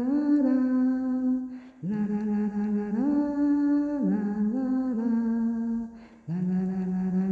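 Wordless a cappella singing, with no instruments: long held notes that step up and down in pitch, in phrases broken by short pauses about two seconds in and about six seconds in.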